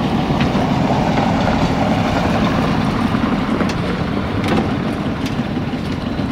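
A sailing yacht's diesel engine running steadily while the boat manoeuvres alongside a quay to moor, with a few faint clicks.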